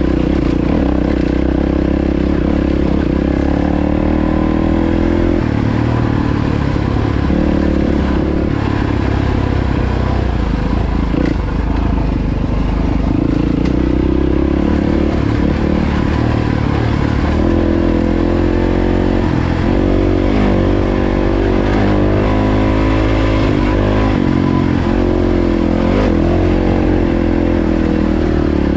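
Yamaha WR450F's single-cylinder four-stroke engine running under way, its revs rising and falling again and again with throttle and gear changes, most busily in the second half.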